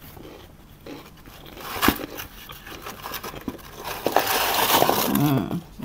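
Crisp papadums crackling and rustling against each other and a plastic tub as they are pulled out. There is a sharp knock about two seconds in, and the crinkling gets louder and denser in the last two seconds.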